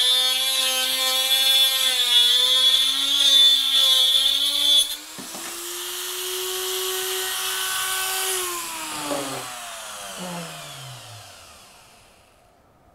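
Dremel rotary tool with a cut-off disc cutting through a hard resin wall panel: a high motor whine over a grinding hiss. About five seconds in the disc comes clear of the cut and the motor runs free at a higher pitch. A few seconds later it is switched off, and the whine falls away as it spins down.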